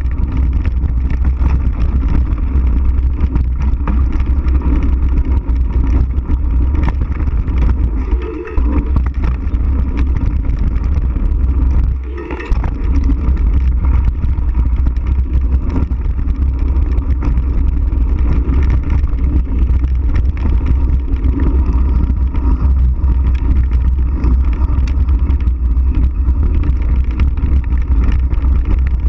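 Wind buffeting the microphone of a handlebar-mounted action camera, with tyre and trail rumble from a mountain bike riding a dirt jump trail. The rumble is steady and loud, dipping briefly twice, about eight and twelve seconds in.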